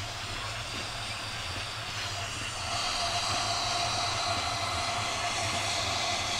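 Steam locomotive approaching slowly with its train, a steady hiss of steam and a running tone that grow louder about three seconds in.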